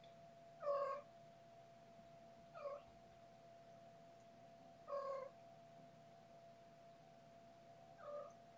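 A young kitten meowing four times, about two to three seconds apart, the first and third calls louder and longer than the other two.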